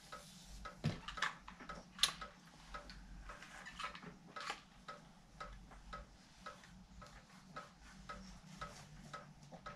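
Faint, regular ticking, about two ticks a second, with a few louder clicks and soft rustles as a flat iron is worked through hair.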